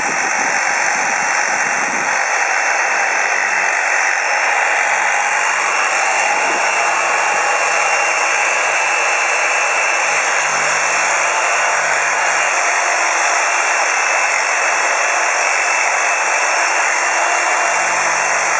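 Scroll saw running steadily at speed, a constant even whirring noise, used to shake an HDMI cable hard at its connector.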